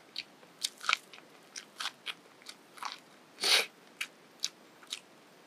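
A person chewing grilled corn kernels: a string of short, wet crunches and mouth clicks, with one louder, longer crunch about three and a half seconds in.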